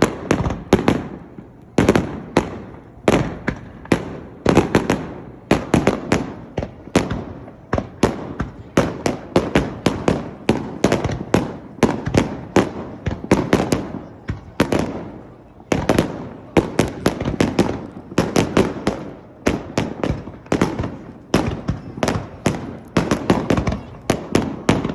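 Fireworks display: a rapid, continuous barrage of shells bursting, several sharp bangs a second, each with a short rumbling tail.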